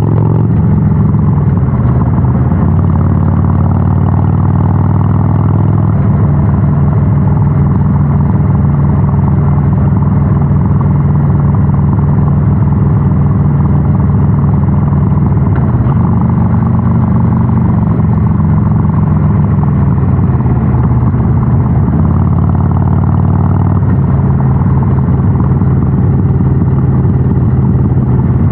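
Harley-Davidson Sportster 883 SuperLow's air-cooled V-twin with a North American-spec muffler, running steadily on the move. Its note shifts a few times as throttle or gear changes.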